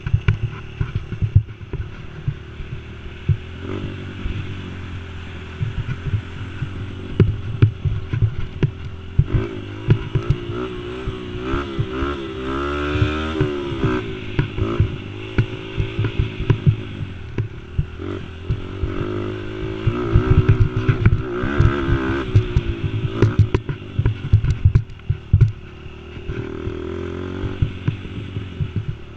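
Youth ATV engine running hard on a rough trail, its revs rising and falling with the throttle, with frequent knocks and rattles from the bumpy ground.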